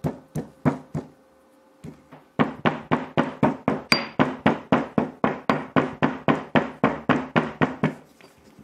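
Pestle pounding in a mortar, crushing a peeled almond together with powdered tablets. It gives sharp, even knocks, a few at first and then a steady run of about four a second, over a faint ringing tone.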